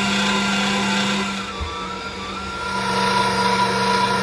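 Electric meat mincer's motor running with a steady hum as it grinds raw chicken. The hum eases off a little about a second and a half in, then picks up again.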